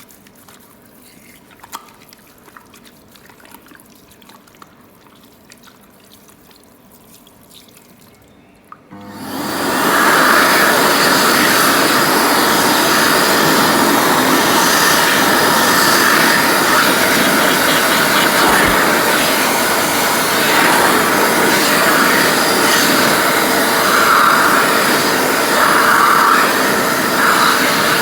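Automatic handwashing tap switching on about nine seconds in, after a few faint clicks, then water running steadily and loudly.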